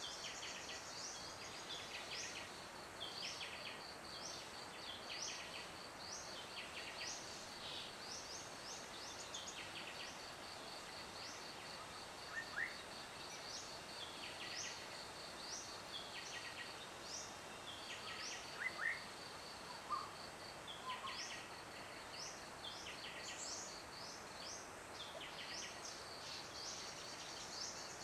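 Outdoor ambience: an insect trilling steadily on one high pitch, with birds making many short, repeated chirps over it and a few louder rising chirps about halfway through.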